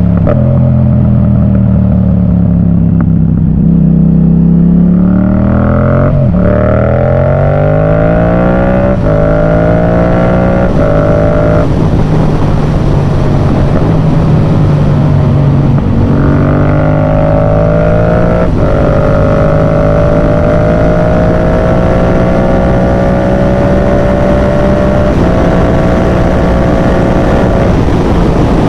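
Yamaha MT-07's parallel-twin engine through a Yoshimura full exhaust, accelerating through the gears. The revs climb and drop sharply at each upshift, about four times between six and twelve seconds in and once more near eighteen seconds. In between it pulls steadily, then rises slowly at cruise.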